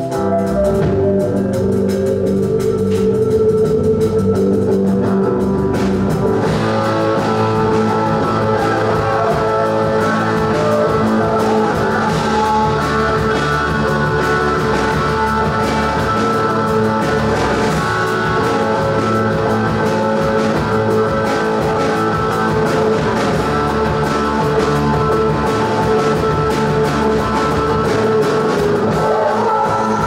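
Live folk-rock music: a wooden flute playing a melody over electric bass, electric guitar and drum kit. The band grows fuller about six seconds in.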